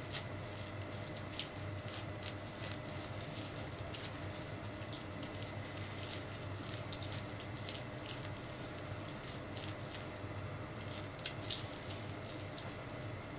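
A metal spoon scraping the flesh out of a halved orange: wet squelching with many small clicks of the spoon against the peel, and two sharper clicks, one about a second in and one near the end.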